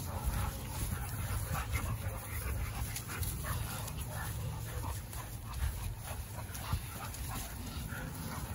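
Several leashed pit bulls panting, with short whines, as they are walked along.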